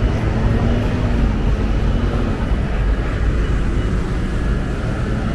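City traffic: a steady low rumble of vehicles, with an engine's hum wavering through the first half.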